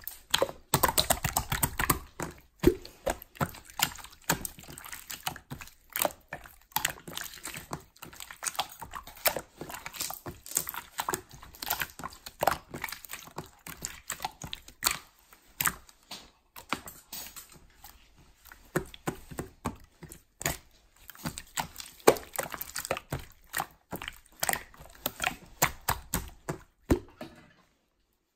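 Slime being squished and pressed by hand: an irregular run of sticky pops and clicks that stops about a second before the end.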